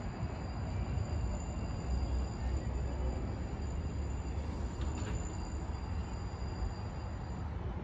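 Outdoor rooftop ambience: an uneven low rumble of wind on the microphone over a steady background hiss, with a faint high whine throughout.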